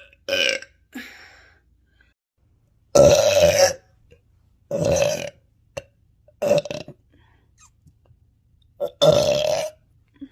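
A woman burping hard, again and again: about half a dozen separate belches of different lengths, the longest lasting most of a second, with pauses of a second or two between them.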